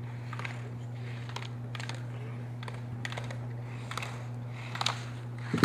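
Steady low electrical hum with scattered light clicks and taps at irregular spacing.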